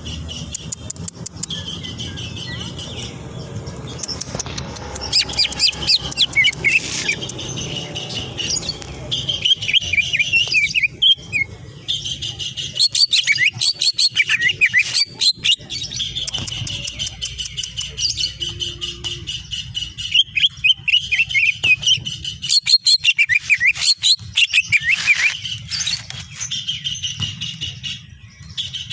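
Cucak ijo (green leafbird) singing: bursts of rapid chattering notes and sweeping high whistles, broken by short pauses.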